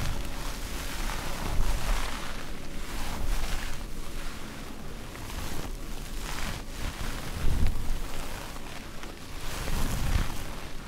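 Sponges rubbed and squeezed right against the microphone: rustling, scratchy noise that swells and fades in waves, with low rumbling thumps from the handling.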